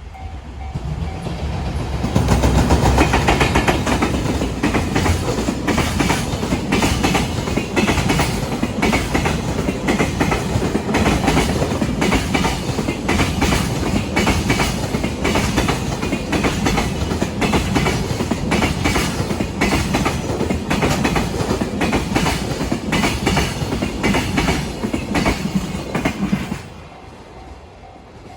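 Freight train passing a level crossing, its wheels clattering over rail joints in a steady clickety-clack for about 25 seconds. The sound drops away suddenly near the end as the last wagon clears. A level crossing warning bell dings steadily, heard before the train's noise builds and again after it fades.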